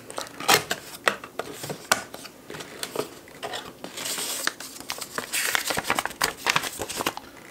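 A small cardboard box being opened by hand, its flaps scraping and clicking, then paper leaflets pulled out and unfolded with rustling from about four seconds in.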